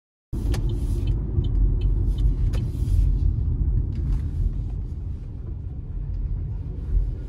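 Car cabin noise while driving: a steady low rumble of road and engine, with a couple of sharp clicks near the start.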